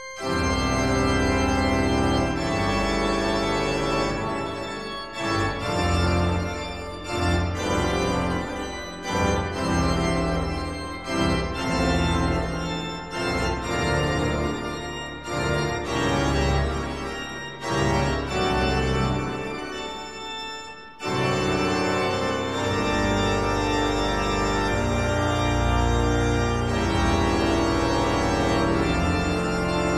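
Background music of sustained, organ-like keyboard chords that come in suddenly at the start, with a short drop about twenty seconds in before the chords resume.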